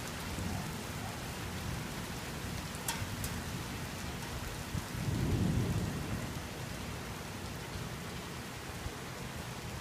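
Steady rain falling, with a short low rumble of thunder about five seconds in that lasts a little over a second.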